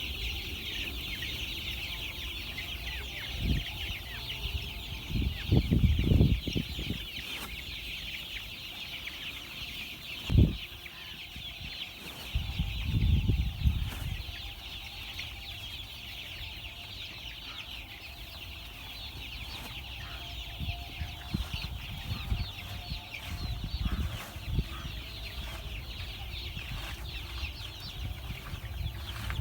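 A flock of month-old chicks peeping continuously, many high chirps overlapping. Several dull low thumps break in, the loudest about ten seconds in.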